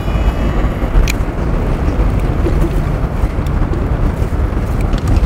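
Wind buffeting the microphone, a steady low rumble, with one sharp click about a second in.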